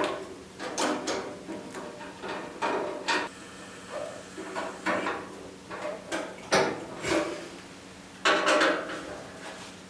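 Irregular metal clunks, scrapes and rattles as a squirrel-cage blower is handled and fastened with self-tapping screws to the back of a Drolet Deco II wood stove. The loudest knocks come about two-thirds of the way in and again near the end.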